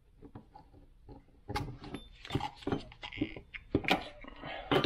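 Irregular clicks, knocks and scrapes of a rusty metal clutch master cylinder and its hardware being handled and worked, as its piston is tested for movement. The piston is seized in its rusted bore.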